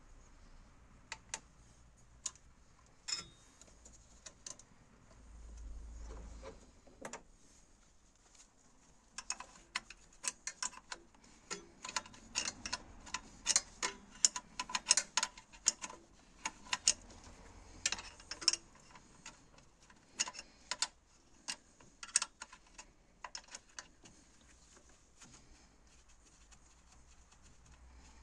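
Irregular metallic clicks and taps of a spanner being worked on a bolt around the EGR valve, a few scattered clicks at first, then a dense run of quick clicks from about nine seconds in to about twenty-three seconds.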